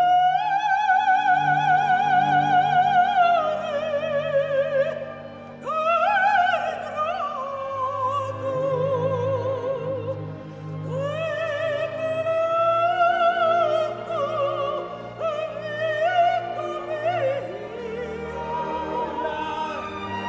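Operatic soprano singing with full voice and wide vibrato, holding long notes over string orchestra accompaniment; the first held note enters loudly at the very start.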